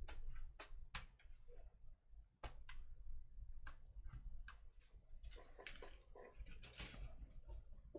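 Faint, sharp clicks of a hobby knife blade cutting through the tabs of a brass photo-etch fret on a cutting mat, a dozen or so scattered ticks, with handling rustle of the fret a little past halfway.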